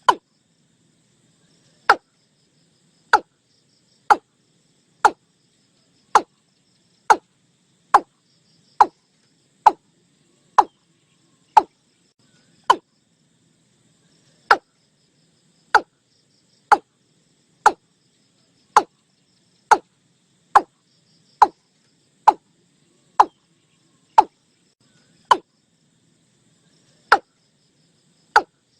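A watercock calling: short, hollow notes repeated about once a second, with a pause of a second or two now and then. A faint insect or frog chorus sits underneath.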